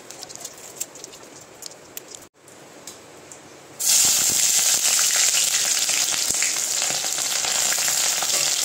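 Whole spice seeds crackling faintly in hot oil in a pan. About four seconds in, sliced red onions are dropped into the oil and a loud, steady sizzle starts at once.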